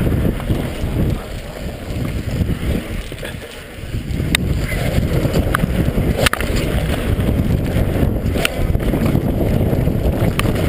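Wind buffeting an action camera's microphone and mountain bike tyres rumbling over a dirt trail at speed, with a few sharp clicks and knocks from the bike rattling over bumps.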